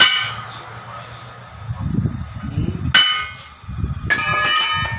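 Hammer blows on a steel tyre lever at the rim of a 10.00 R20 truck wheel, each a sharp metallic clang that rings on: one at the start, one about three seconds in, and a last one near the end that rings for most of a second. The blows drive the lever in to break the tyre's bead off the steel rim.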